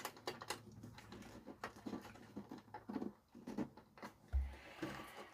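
Faint scattered clicks and light taps from hands working the tuning controls of a Sansui TU-77X tuner, with one soft low thump about four seconds in.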